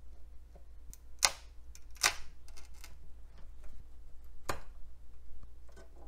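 Small flat-blade screwdriver prying a socketed keyboard BIOS chip loose from its socket on an old motherboard: a few sharp clicks and scrapes as the chip's pins come free, the loudest about a second in, at two seconds and at four and a half seconds, over a faint low hum.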